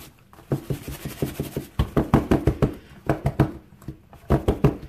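Silicone soap mold full of fresh cold process soap batter being shaken and tapped against the tabletop: dull knocks, several a second, in about four quick bursts with short pauses between.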